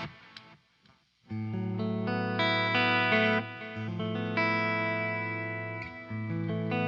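Electric guitar, a Les Paul with PAF humbucking pickups, played through a 1966 Marshall JTM45 amplifier and miked at the speaker cabinet. The last chord dies away into a short silence. About a second and a half in, the playing resumes with a run of ringing chords and held notes, each left to sustain for a second or so before the next.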